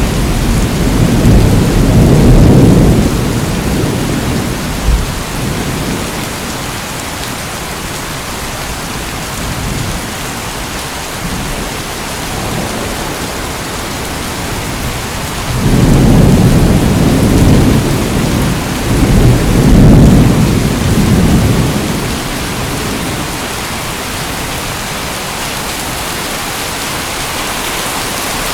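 Steady heavy rain hissing, with low rolling thunder rumbles near the start and two more close together just past the middle.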